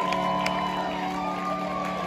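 Live rock band on stage holding a steady chord as a song opens.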